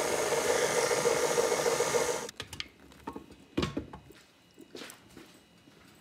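Electric stand mixer running steadily, its flat beater whipping mashed potatoes in a stainless steel bowl; the motor cuts off about two seconds in. A few light knocks and clicks follow as the beater is lifted out and a spatula goes into the bowl.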